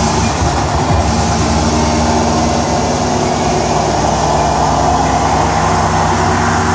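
Techno music from a DJ set, in a passage of steady low synth drones under a wide hiss, with no clear kick drum beat.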